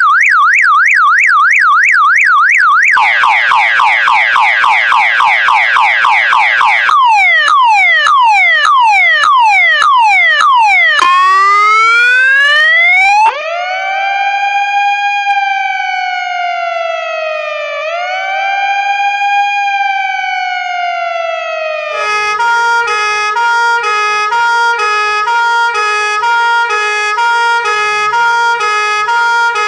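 A run of emergency-vehicle sirens, one after another: a fast yelp that sweeps up and down, a faster warble from about three seconds in, then quick falling sweeps. About eleven seconds in a siren winds up and settles into a slow wail that rises and falls twice. About 22 seconds in it changes to a two-note siren alternating steadily between a high and a low tone.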